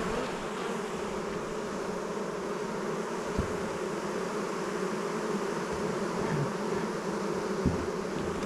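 Honeybee colony buzzing in a dense, steady hum around an opened hive, the bees stirred up and excited as their box is put back. A faint knock sounds about three seconds in.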